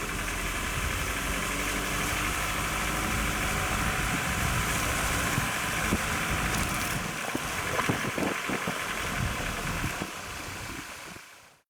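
Ford Ranger FX4 pickup's engine running as it drives, with a few knocks around two-thirds of the way in. The sound fades out near the end.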